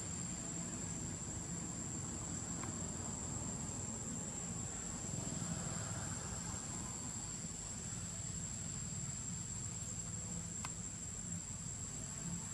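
Insects droning on one steady high-pitched tone, over a low, even background rumble, with a couple of faint ticks.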